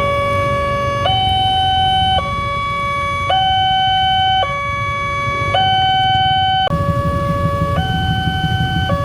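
Railway level-crossing warning siren sounding a slow two-tone alternation, a lower and a higher electronic tone, each held about a second. A low rumble runs underneath and turns into a fast, rough pulsing about two-thirds of the way in.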